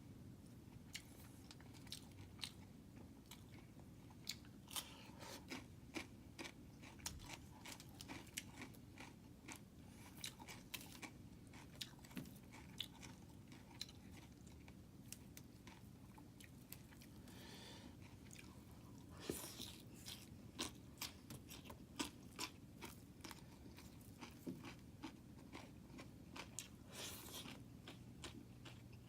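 A person chewing and biting crunchy food close to the microphone: many short, sharp crunches at an irregular pace.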